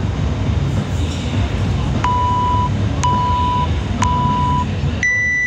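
Workout countdown timer beeping the start of a timed workout: three short beeps a second apart, then one longer, higher-pitched go beep. A steady low rumble runs underneath.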